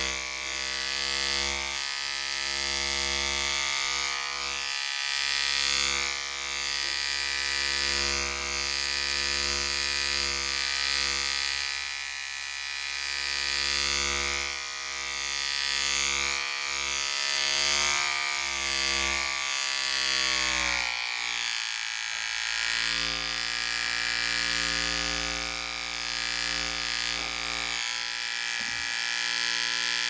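Electric hair clipper running with a steady buzzing hum that swells and eases a little in loudness, its pitch dipping briefly and recovering about two-thirds of the way through.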